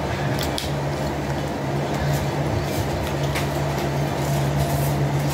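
Electric fan running with a steady hum, with light crinkles of plastic packaging being handled now and then.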